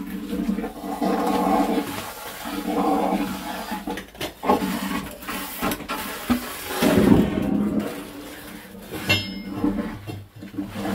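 Septic-tank suction hose slurping and gurgling in uneven surges as it draws sludge and air out of the tank, which is nearly pumped dry. A few sharp knocks come between the surges.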